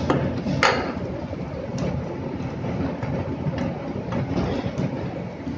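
Chopped onions frying in oil in a nonstick pan over a gas flame: a steady sizzle with a low rumble, broken by a few sharp knocks of the stirring spoon against the pan, the loudest about half a second in.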